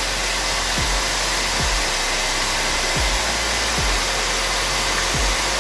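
Black & Decker 10L wet and dry vacuum cleaner running, its motor giving a steady whine over loud rushing air, with irregular low puffs of air. The hose is on the blower outlet, so the machine is blowing instead of sucking.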